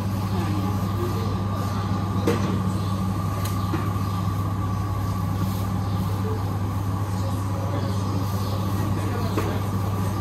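Steady low hum of supermarket refrigeration and ventilation machinery, with faint voices and a light knock about two seconds in.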